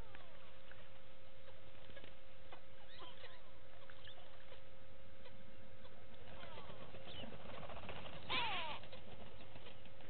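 A grey go-away bird gives one short nasal call, with several pitches at once, about eight seconds in. Before it, small birds chirp here and there over a steady hum and hiss.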